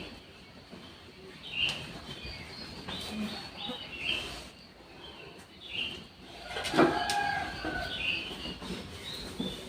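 Small birds chirping in short high notes, roughly one a second, with a longer, lower call about seven seconds in.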